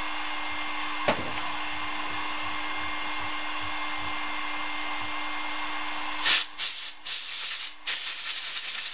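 Compressed-air blow gun hissing at a freshly fitted crankshaft ball bearing of a Stihl MS-250 chainsaw, cooling it: a few short blasts, then a steady blast. Before it, a steady hum with a faint tone and a single click about a second in.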